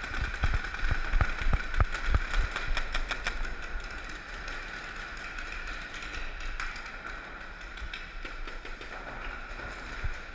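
Running footsteps and the clatter of paintball gear, heard from a helmet-mounted camera, thumping for the first few seconds and then easing off as the runner settles behind cover, over a steady hum.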